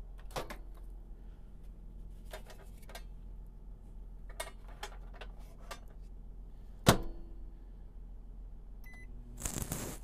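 Microwave oven being loaded and started: soft knocks of a plate going in, the door shut with a sharp clack about seven seconds in, then a short high keypad beep near the end as it is switched on to heat food.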